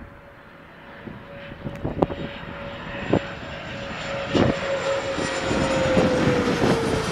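Bombardier Challenger 600-series business jet on landing approach passing low overhead: the steady whine of its turbofans grows louder and drops slightly in pitch near the end as it goes past. A few sharp knocks cut through, about two, three and four and a half seconds in.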